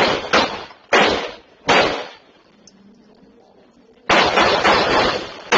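Gunfire in a shootout: several shots in the first two seconds, a pause of about two seconds, then a rapid volley of shots near the end.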